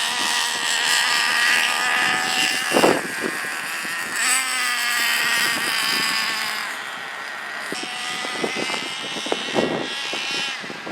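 Traxxas Revo 3.3's two-stroke nitro engine running at high revs, its high-pitched whine rising and falling in pitch as the throttle is worked, with a few sharp knocks. It is running properly now that the swapped fuel lines have been put back in the right order.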